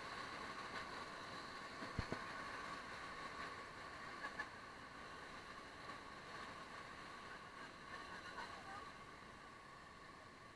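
Whitewater rapids rushing around an inflatable raft, a steady noisy roar that grows slowly quieter toward the end, with one sharp knock about two seconds in.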